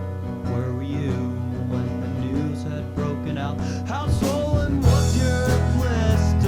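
A guitar-led song starts abruptly, recorded on a Fostex X-77 cassette multitrack; the low end fills out about four seconds in.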